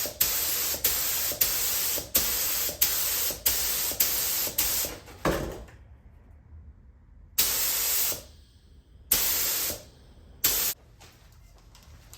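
LVLP paint spray gun hissing as the trigger is pulled in short bursts while spraying 2K primer: a quick run of about ten half-second bursts, a pause of about two seconds, then three more spaced-out bursts, the last one brief.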